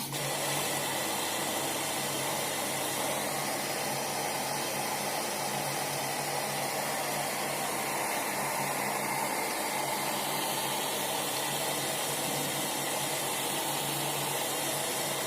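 Profilo CM 1001 washing machine running: a steady rush of water with a low pump hum underneath, starting suddenly and holding even throughout.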